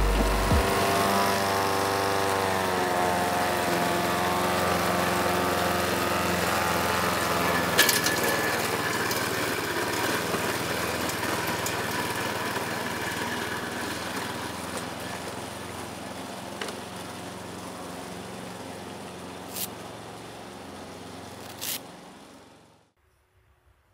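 Petrol walk-behind lawn mowers running steadily, the sound slowly fading and then cutting off near the end, with a few sharp ticks over it.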